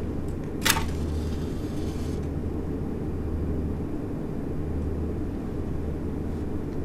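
A match struck once, about a second in, flaring with a short hiss that fades over a second or two, over a steady low hum.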